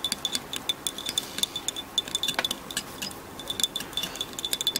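Metal teaspoon stirring tea in a Turkish tulip-shaped tea glass, clinking rapidly against the glass several times a second with a bright ringing tone, with a brief lull past the middle.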